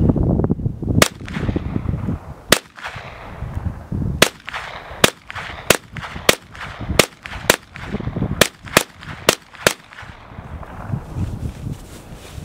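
Ruger LC Carbine in 5.7×28 firing about a dozen single shots, the first three spaced about a second and a half apart, then quickening to roughly one every half second.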